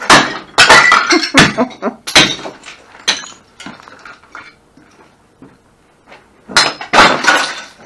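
A metal bar smashing ceramic plates and glass on a tabletop: a run of hard strikes, each with shards clinking and breaking, then scattered clinks of settling pieces and another loud crash near the end.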